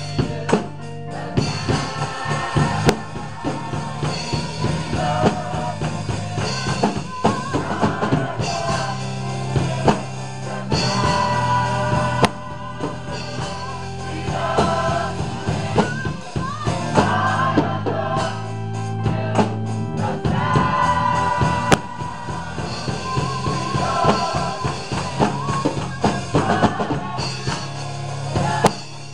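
Gospel choir singing with a band of drum kit and bass backing it.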